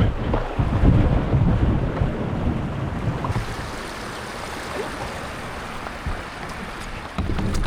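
Rushing river water with a low rumble of wind buffeting the microphone. It is louder for the first couple of seconds, settles to a quieter steady rush, then rises again near the end.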